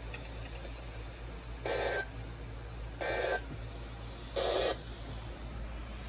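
Three short bursts of SAME digital data, the end-of-message code of a NOAA Weather Radio alert, come through a RadioShack weather radio's speaker. They are a little over a second apart, over a steady low hum and hiss, and mark the end of the broadcast warning.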